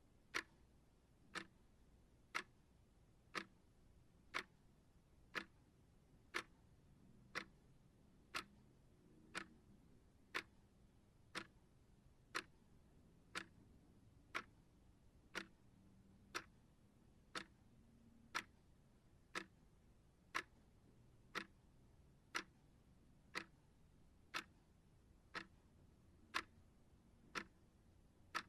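Clock ticking steadily, one short sharp tick each second.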